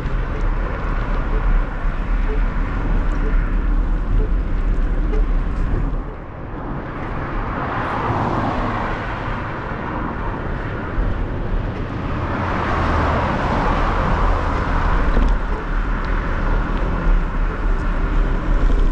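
Steady wind rumble on the camera microphone with road noise while riding along a street. Twice a vehicle passes, its sound swelling up and fading away.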